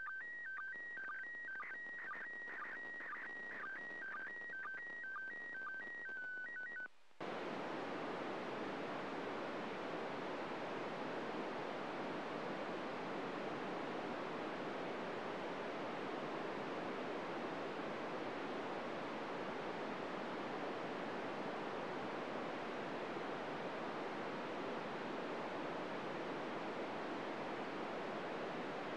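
The audio of a Slow Scan Television signal from the International Space Station, received on 145.800 MHz FM: repeated beeps that alternate between a higher and a lower pitch. The beeps cut off about seven seconds in, where the downlink signal ends and the radio gives steady FM static hiss.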